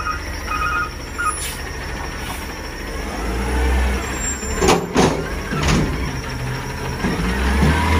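Peterbilt 320 front-loader garbage truck's diesel engine running, with a back-up alarm beeping in the first second or so. About three seconds in the engine revs up as the forks go into the steel dumpster. Metal clanks sound around five and six seconds as the dumpster is picked up, and the engine revs again near the end as the arms begin to lift.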